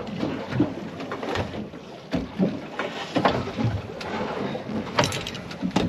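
A rope hauled hand over hand through a pulley rigged on a boat, winching a shark aboard, gives irregular knocks and short creaks.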